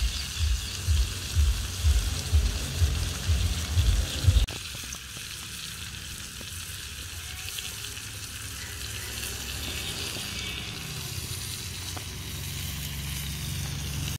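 Lady fish frying in oil in a pan over a wood fire: steady sizzling throughout. For the first four seconds or so there are also low thumps, about three a second, that stop suddenly.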